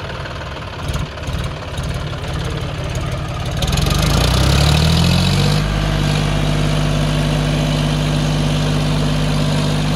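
John Deere 5050D tractor's three-cylinder diesel engine idling, then revving up about four seconds in and holding at high revs while the rear wheels spin in loose sand, digging themselves in.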